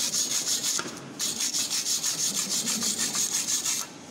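Hand wire brush scrubbed rapidly back and forth over a freshly laid MIG weld bead on a steel plate, cleaning the bead, at about six strokes a second. The scrubbing breaks off briefly about a second in, then resumes until near the end.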